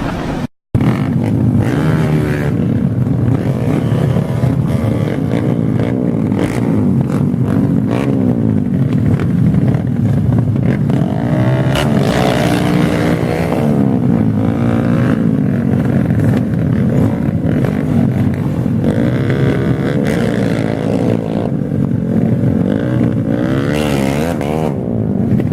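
Several motorcycle engines running at once, their pitch rising and falling as they rev, with a short dropout to silence just after the start.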